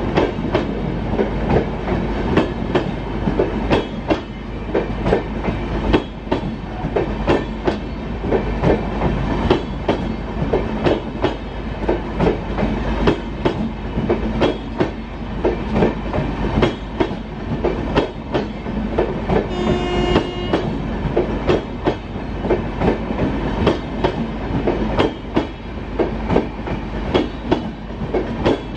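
Express train coaches passing close by at speed, their wheels clattering rapidly over the rail joints in a continuous clickety-clack over a low rumble. A short pitched tone sounds briefly about twenty seconds in.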